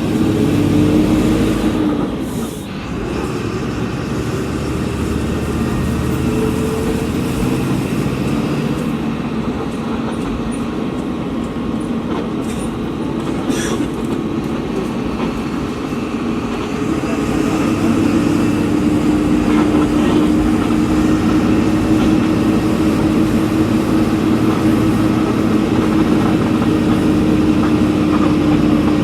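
Volkswagen Volksbus 17.230 EOD bus's diesel engine running steadily under way. The note dips briefly about two seconds in, then settles into a stronger, steady tone from about halfway on.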